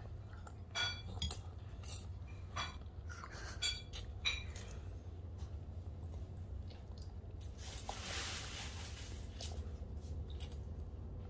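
Plastic fork and spoon clicking against a plate of noodles, a few light clinks in the first few seconds, then a short slurp of noodles about eight seconds in.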